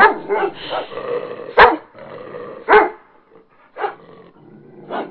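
A dog barking: four short, sharp barks about a second apart, after a rougher, continuous growly stretch in the first second and a half.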